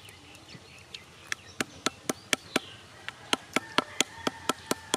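Bamboo tube knocking on roasted cashew nuts to crack their charred shells: a run of sharp knocks, about four a second, starting a little over a second in.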